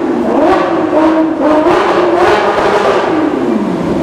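Sports car engine revving in a road tunnel, its pitch rising and falling in several revs, then dropping away near the end as the car passes.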